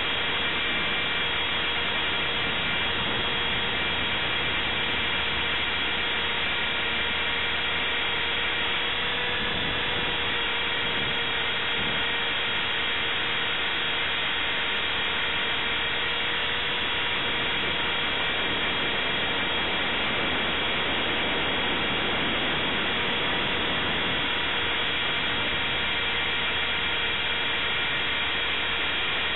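Align T-Rex 450S electric RC helicopter heard from its own onboard camera in flight: a steady high whine from the electric motor and drivetrain, several fixed tones over a constant rushing noise.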